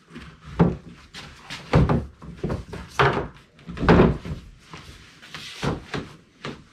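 A hollow-core interior door in its wooden split jamb knocking and thumping against the doorway's opening while it is set and pushed into place: a string of irregular wooden knocks.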